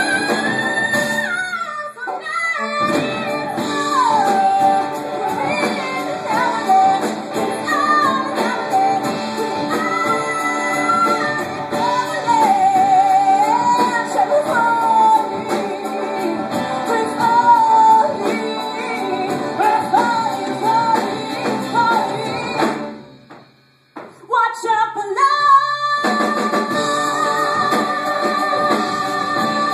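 A woman singing a musical-theatre ballad live with a small band including piano. Near the end the music drops almost to silence for about a second, then comes back on a long held note.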